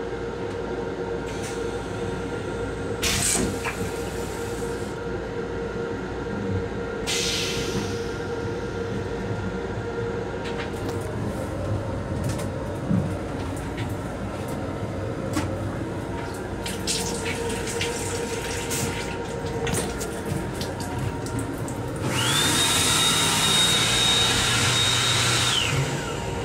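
M7 electric railcar running steadily underneath, with short hissing bursts about three seconds in and again about seven seconds in. Near the end the restroom's hand dryer starts with a rising whine, blows steadily at a high pitch for about three seconds, then winds down.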